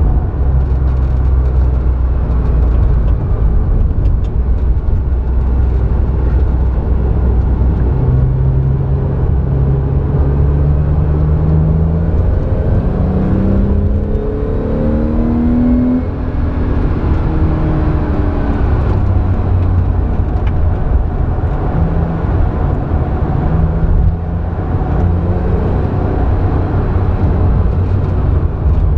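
Porsche 911's flat-six engine at racing speed, heard from inside the cabin. Engine pitch climbs through the middle of the stretch, with brief drops in level about halfway and again later on as the driver shifts or lifts.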